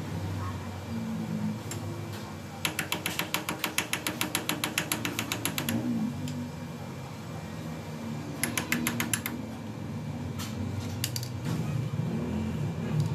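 Rapid run of mechanical clicks, about ten a second, lasting about three seconds, then a second, shorter run about a second long, over a low steady hum.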